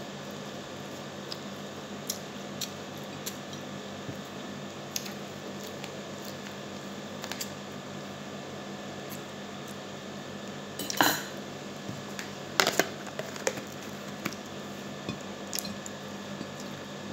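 Eating by hand from a ceramic plate: fingers working rice against the plate and chewing, with scattered small clicks and two louder clatters of dishware, about eleven and twelve and a half seconds in, over a steady background hum.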